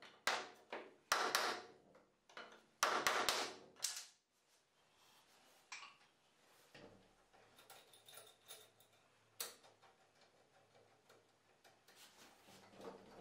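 Steel bar clamps being slid and tightened on a wooden cabinet. A run of loud metal clatters and rattles fills the first four seconds, then only a few faint clicks follow.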